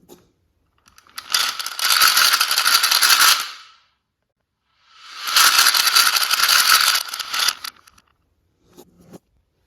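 Marbles rolling and rattling down a plastic marble-run track, in two stretches of about two and a half seconds each. A few single clicks come at the start and near the end.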